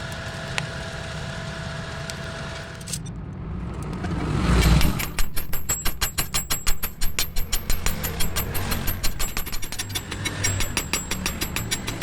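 Rapid, regular hammer blows on steel, about four to five a second, as a chopper blade is forged, after a few seconds of steady machine hum.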